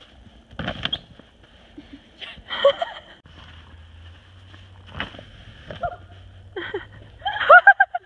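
Footsteps and scuffs in snow as an inflatable snow tube is dragged and pushed. Near the end comes a girl's voice in short high-pitched cries, the loudest sound.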